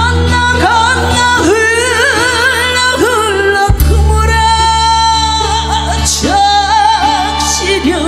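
A woman singing a slow Korean song into a microphone over a backing track, the held notes wavering with vibrato above a steady bass line.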